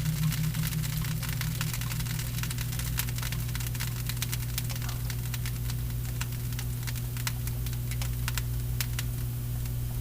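A steady low electrical hum with faint scattered clicks and crackle throughout.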